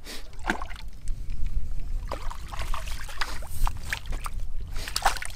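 Small splashes and sloshing at the water's edge as a hooked black crappie is pulled from the reservoir, over a steady low rumble.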